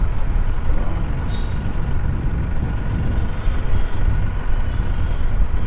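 Motorcycle riding at low speed in traffic, heard from the rider's own microphone: a steady, dense low rumble of engine and road noise with a faint thin whine above it.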